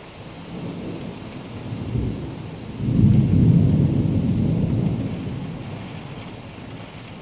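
Thunder rolling through heavy monsoon rain. A low rumble builds over the first couple of seconds, is loudest about three seconds in, and fades away slowly, over the steady hiss of the downpour.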